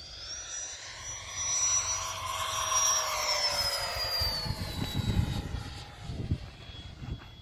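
Freewing 90 mm electric ducted-fan F/A-18 model jet making a low fly-by. Its high fan whine swells to its loudest two to three seconds in, then drops in pitch and fades as it passes and goes away. There is low rumbling in the second half.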